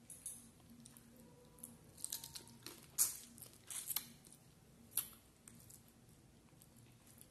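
Close-miked eating sounds: rice and curry gathered by hand from a steel plate and eaten from the fingers, heard as a cluster of sharp wet smacks and clicks. The loudest comes about three seconds in, with another near five seconds.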